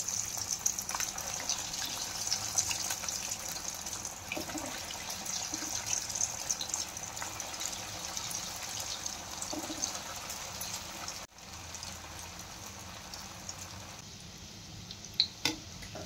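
Bread-crumbed cheese corn balls deep-frying in hot oil in a steel kadhai: a steady sizzle with fine crackling, a little quieter from about eleven seconds in. A few sharp clicks near the end.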